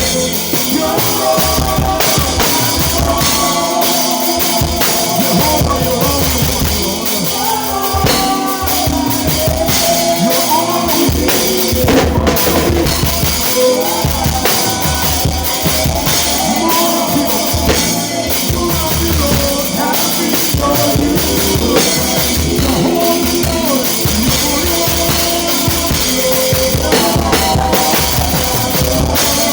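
Live worship band playing an instrumental groove: a drum kit keeps a steady beat with bass drum, snare and rim strokes, under moving melodic lines from the band.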